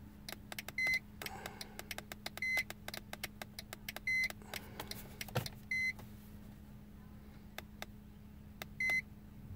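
Handheld iCarsoft i980 diagnostic scan tool beeping at its key presses while its arrow key is pressed to page through the live data: five short, high beeps spaced unevenly. Soft clicks of the keys come between them, over a low steady hum.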